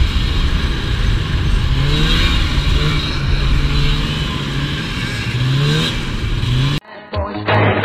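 Polaris Indy Lite 340 snowmobile's two-stroke engine running at speed, its pitch climbing several times as the throttle is worked. Near the end it cuts off suddenly to music.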